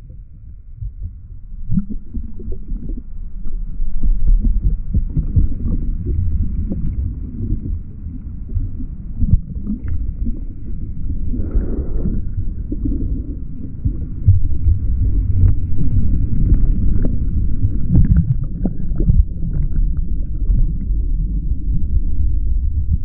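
Water sloshing and splashing against a board-mounted camera as a surfer paddles through the surf, heard as a dull, muffled rumble with irregular thumps.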